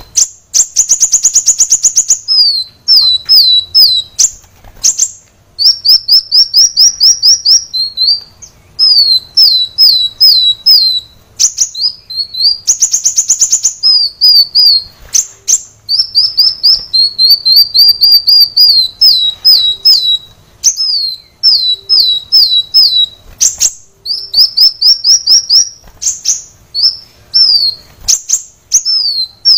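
Kolibri wulung sunbird singing loudly and without pause: quick series of high, downslurred chip notes, broken twice by a dense, rapid buzzy trill, about a second in and again about 13 seconds in.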